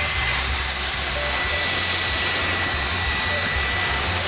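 Twin jet engines of an American Airlines Boeing 757 running steadily as the airliner taxis, a constant rushing noise with a high whine on top.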